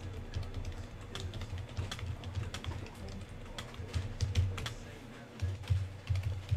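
Typing on a computer keyboard: irregular quick key clicks, heard over a low muffled rumble.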